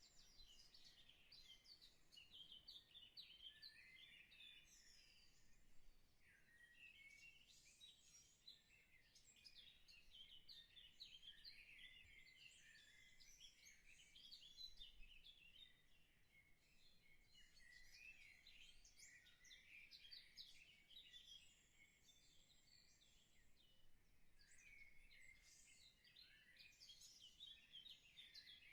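Faint, continuous chirping and twittering of many small birds, a dense run of short high calls.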